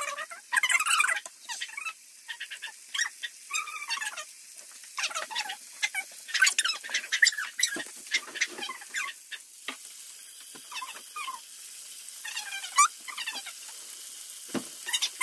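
Breaded chicken strips frying in hot oil in a pan, the oil sizzling with irregular crackles and pops.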